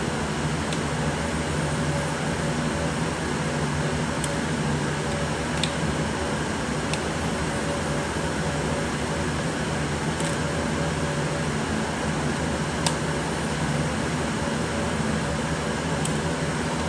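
Steady whir of running fans with a low hum in it, and a few faint clicks from small screws and a precision screwdriver being handled, the sharpest about three-quarters of the way through.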